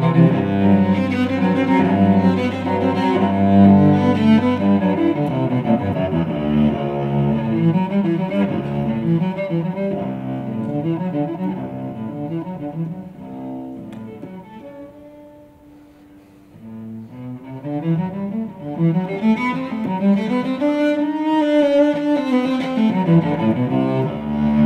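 Solo cello played with the bow, a flowing passage of many notes. It grows soft about two-thirds of the way through, then swells again into a rising and falling melody.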